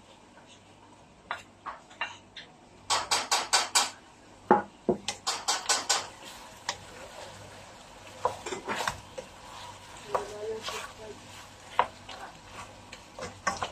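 Wooden spoon knocking and scraping diced vegetables off a plate into a cooking pot, with a quick run of taps about three seconds in and another about five seconds in. Scattered knocks of the spoon against the pot follow as it stirs the vegetables into the chicken.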